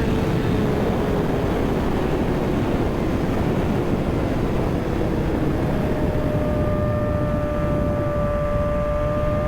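Kawasaki ZX-6R's inline-four engine running at speed under heavy wind rush. Its note eases down over the first few seconds, then a steady, higher note sets in from about six seconds in.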